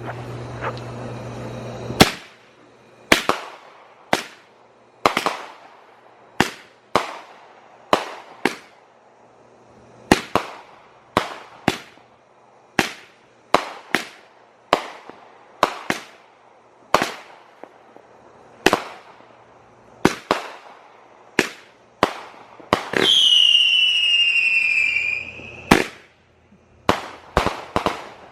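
World Class Peekaboo firework cake firing a long run of shots, one or two a second, each a sharp bang with a short echoing tail. Near the end a high whistle, falling slightly in pitch, sounds for about three seconds and cuts off suddenly.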